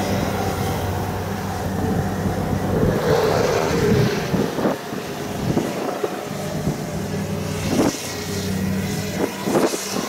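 Kubota DC70 rice combine harvester running, its diesel engine giving a steady drone, with a few sharp knocks from the machine in the second half.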